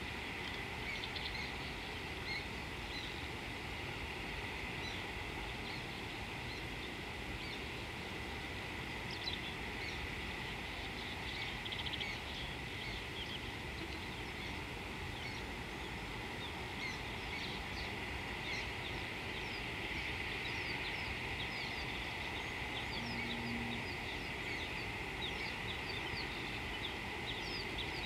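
Outdoor ambience with many short bird chirps, more frequent in the second half, over a steady high drone and low rumbling noise. A brief low hum comes near the end.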